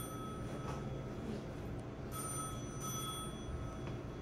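An electronic ringing tone sounding in repeated rings of about two seconds, with a gap of about a second between them, over a steady low hum.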